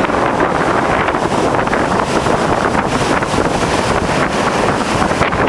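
Strong typhoon wind buffeting the microphone in a steady, loud rush, over the noise of big waves.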